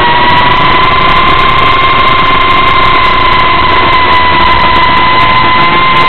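Brushless motors and propellers of a small Reptile Cloud 149 V2 FPV quadcopter in flight, heard close up from a camera mounted on the drone. It is a loud, steady whine with a second, higher tone, rising and dipping slightly with throttle, over rushing noise.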